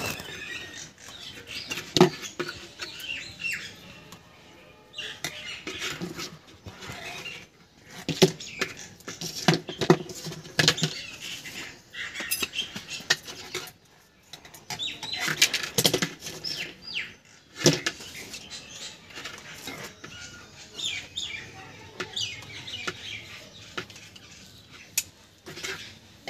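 Thin aluminium wire being bent, twisted and cut by hand with pliers and scissors as small wire rings are bound onto a wire frame: irregular clusters of sharp clicks, snips and scraping of metal.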